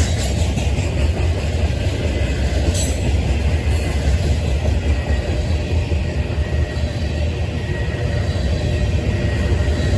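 Freight cars of a CSX manifest train rolling past with a steady, deep rumble. There is a brief sharp click about three seconds in.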